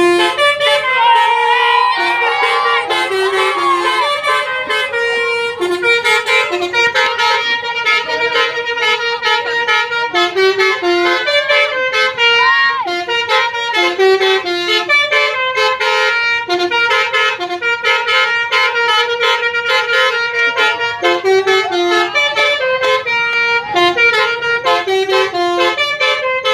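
Multi-tone basuri 'telolet' bus horn playing a rapid melody of short, stepping notes.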